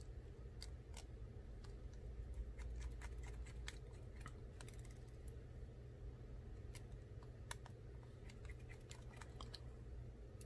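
Faint small clicks and ticks of a precision screwdriver turning tiny screws into the metal back plate of an iPhone 8 display, in scattered clusters over a steady low hum.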